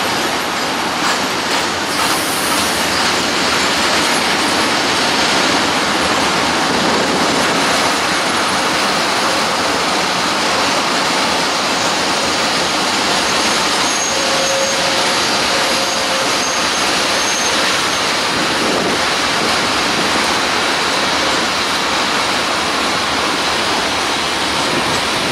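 Covered sliding-wall freight wagons of a passing freight train rolling by close at hand: a loud, steady rumble and rattle of wheels on rail, with a faint high squeal about halfway through.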